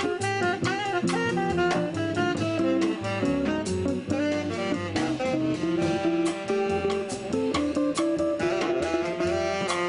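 A small jazz combo playing live: upright double bass, a drum kit with cymbals and an archtop guitar, with a sustained lead melody on top.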